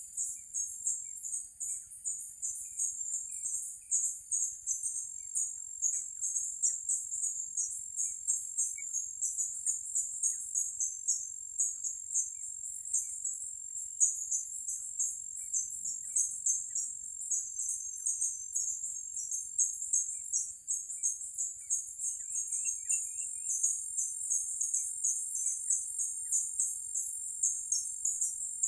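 Insects chirping in a dense, rapid, high-pitched chorus, with a steady continuous buzz joining in about two-thirds of the way through. Faint bird chirps sound now and then underneath, including a short trill.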